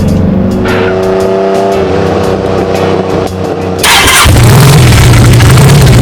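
Car engine revving sound effect over background music with a steady beat; about four seconds in, a loud rush of noise comes in and the engine sound swells.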